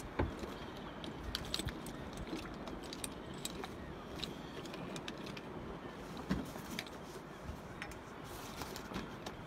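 Scuba gear clicking and clinking: metal clips, buckles and hoses on a diver's harness knocking together as he handles and checks his equipment, with a couple of louder knocks.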